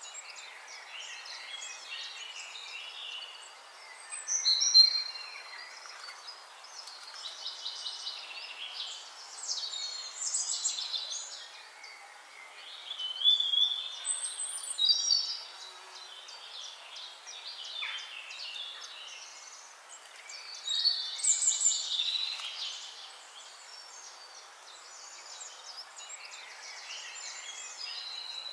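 Several birds singing and chirping at once, a dense chorus of overlapping high calls and trills, with louder bursts every few seconds.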